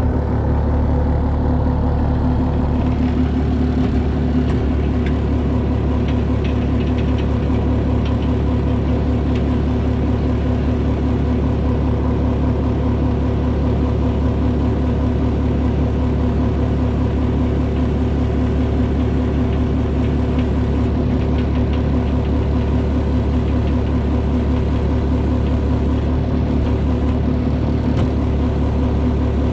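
A vehicle engine running steadily at a constant speed, a loud, even low drone that doesn't change.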